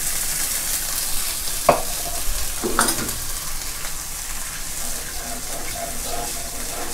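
A sugar, garlic and shallot mixture sizzling steadily in a hot non-stick wok as water is poured in and stirred with a metal ladle. There are two sharp knocks of the ladle against the pan, about two and three seconds in, and light scraping near the end.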